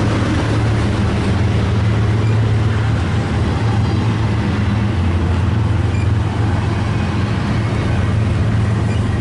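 Diesel locomotive engine running steadily with a deep, even drone.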